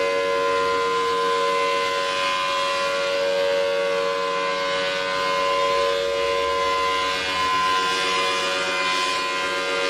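Outdoor tornado warning siren sounding a loud, steady tone that holds one pitch without rising or falling: the alert for a tornado warning.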